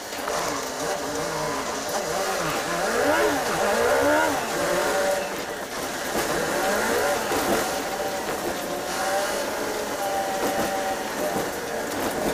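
City bus engine and drivetrain running while the bus drives in traffic, heard from inside the cabin. Its pitch rises and falls several times in the first few seconds with acceleration and gear changes, then runs steadier.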